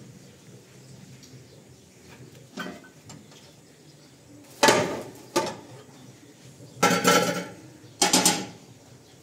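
Metal pots, lids and a tray clanking as they are handled and set down: a faint knock, then four sharp clanks from about halfway in, each ringing briefly.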